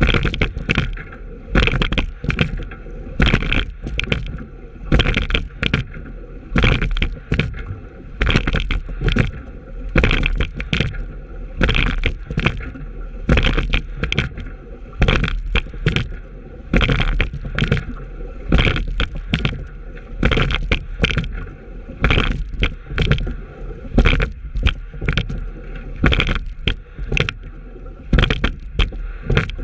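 Racing shell being sculled at a steady hard pace: at each stroke, about once every 1.7 seconds, a cluster of sharp clunks and splashes from the oars, over a steady rush of water and wind.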